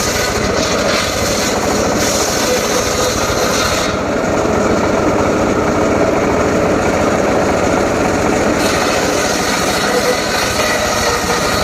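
Homemade circular saw rig running loud and steady. A high-pitched hiss is stronger during the first few seconds and comes back about two-thirds of the way through.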